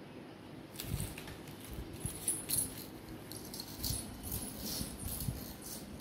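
Small metal bells on a toddler's anklets jingling on and off as she moves about, with soft low thumps.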